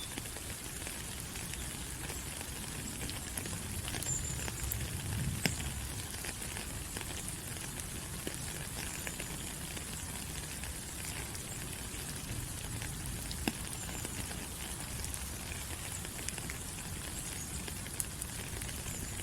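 Steady rain falling on rainforest foliage: an even hiss with scattered drop taps, and a few brief, faint high chirps.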